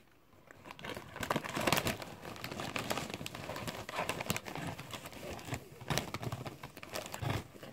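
A foil crisp packet crinkling and rustling as a hand handles it and reaches inside, starting about a second in.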